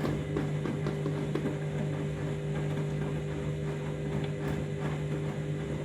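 Candy washing machine's drum motor running steadily in the wash tumble: a constant hum with irregular light clicks and splashes from the heavily sudsed load.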